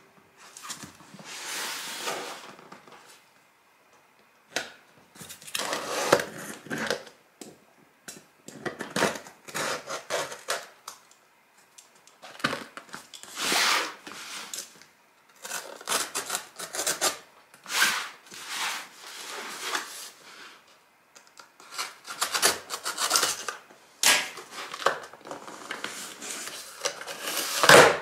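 A cardboard shipping box being opened by hand: the sealing tape cut and torn, and the cardboard flaps scraped, rubbed and pulled open, in a string of rustling bursts with short pauses between them.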